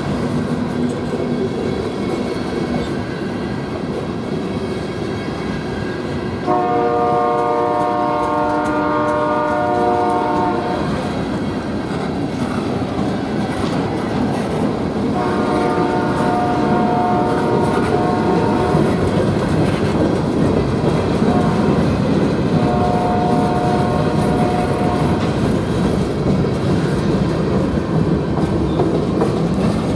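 Freight cars rumbling and clicking over the rail joints as a train rolls through a grade crossing. A multi-chime locomotive horn sounds up ahead three times: a long blast about a quarter of the way in, a second a few seconds later, and a shorter third past the middle.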